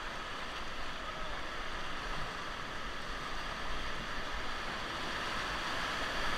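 River whitewater rushing past the raft, a steady, even rush of water.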